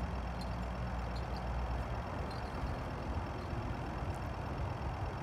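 Steady low rumble under a faint even hiss, with a few faint ticks.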